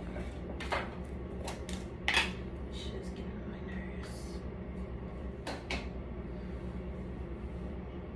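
Light clicks and knocks from small items being handled, the loudest a little over two seconds in, over a steady low hum.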